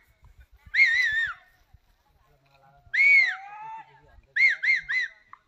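A series of high, whistle-like calls, each rising and then falling in pitch: a wavering one about a second in, a longer one at three seconds, then three short ones in quick succession around four and a half seconds.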